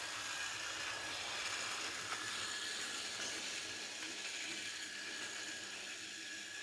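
Battery-powered Fisher-Price TrackMaster Skarloey toy engine running along plastic track: its small motor and gears whir steadily, with a thin high whine.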